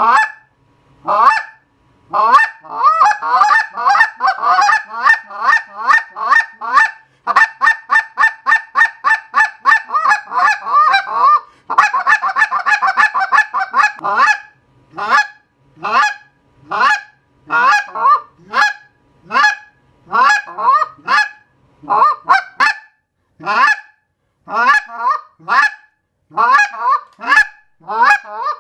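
Mr. Big goose call with custom broken-in guts (grooves etched into the tone channel and rubber inlaid in it) blown to imitate Canada geese. It plays fast runs of short rising honks, about four a second, for the first half, then slower honks spaced singly or in pairs.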